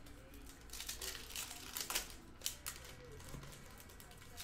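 Panini Hoops basketball card pack wrappers crinkling as packs are opened, in irregular short bursts.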